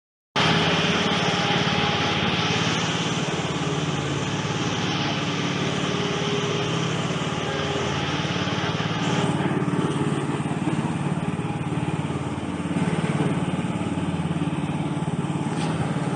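Riding lawn mower's small engine running steadily. About nine seconds in, the higher hissing part of the sound drops away and the engine carries on.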